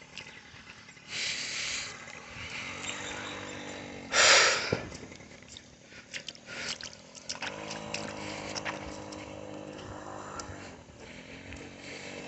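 Small motorbike engine running along a muddy track, its pitch dipping and picking up again several times as the throttle changes. There are short rushing noise bursts, the loudest about four seconds in, and scattered clicks.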